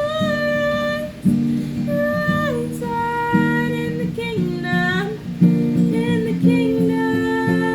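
Acoustic guitar strummed and picked, with a high wordless vocal melody of held notes that slide from one pitch to the next.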